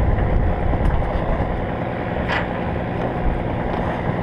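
Truck engine running steadily, heard from inside the open cargo bed, with a few light knocks and rattles from the bed.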